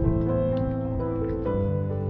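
Background music: gentle piano with sustained notes changing every half second or so.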